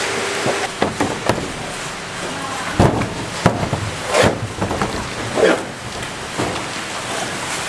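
Machete or cleaver chopping coconuts: a series of sharp strikes at irregular intervals, over a steady background hiss.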